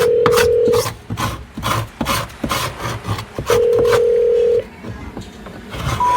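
Washing machine control panel beeping: two long, steady electronic beeps about three seconds apart, with clicking and rubbing noises in between.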